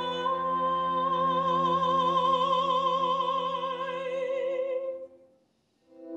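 Classical female voice holding one long high note, its vibrato widening, over sustained low string-quartet chords. Both fade away about five seconds in, leaving a brief silence before the strings come back in at the very end.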